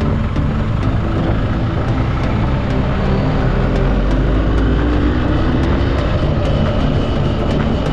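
Vehicle engine running under way with heavy wind and road noise, the engine note rising as it accelerates a few seconds in.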